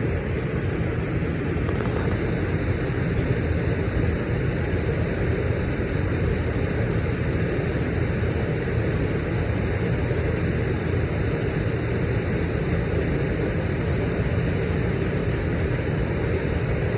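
Steady low rumble of an Amtrak passenger train at the platform, its F59PHI diesel locomotive running.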